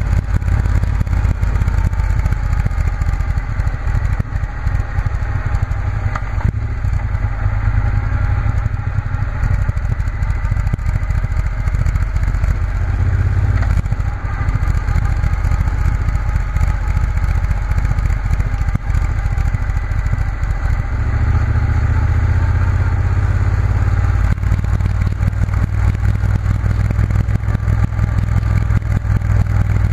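Triumph Bonneville T120's parallel-twin engine running under way. Its pitch drifts slowly up and down with road speed, with brief drops in level about 6 and 14 seconds in, and it pulls harder from about two-thirds of the way through.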